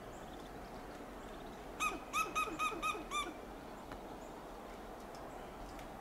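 Western gray squirrel giving an alarm call: a quick run of about seven short, sharp calls, starting a little under two seconds in and lasting about a second and a half.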